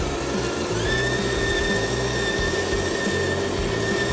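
Electric motor and gearbox of a radio-controlled cab-over truck whining steadily as it drives through mud. The whine steps up to a higher pitch about a second in and holds there.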